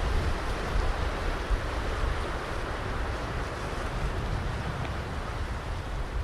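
Ocean surf washing onto a beach: a steady rushing wash of water, with an uneven low rumble underneath.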